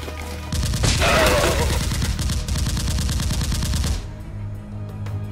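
Rapid automatic gunfire, a fast, unbroken string of shots from about half a second in that stops abruptly about four seconds in, loudest near its start.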